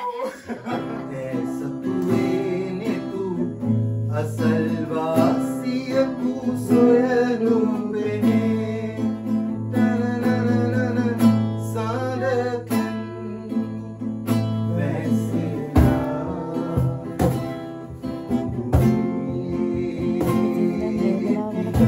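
Acoustic guitar strummed while people sing along, the guitar's strokes sharper and more percussive in the second half.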